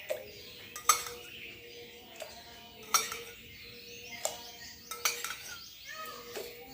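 Metal spoon clinking against a glass and a vessel as water is measured out spoonful by spoonful, a sharp clink with a short ring about every second. Birds chirp in the background.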